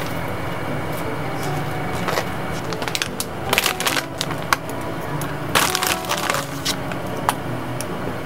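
Panko-breaded patties frying in shallow oil in a pan, with clustered bursts of crackling and spitting, the loudest about three and a half and five and a half seconds in, over soft background music.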